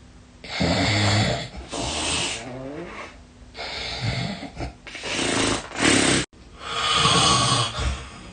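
A sleeping person snoring, heavy and deep: about six loud snores in a row, each lasting under a second, with short pauses between them.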